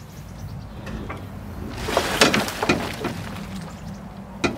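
Plastic cargo bed of a Bombardier utility vehicle being worked open, rattling and scraping with many small knocks that build about two seconds in, then one sharp clunk near the end.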